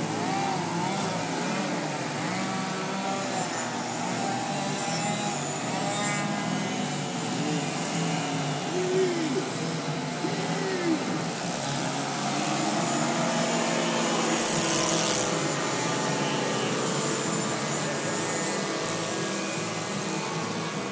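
Many radio-controlled 3D aerobatic planes hovering at once, their engines and propellers droning together in a dense buzz that rises and falls as the throttles change.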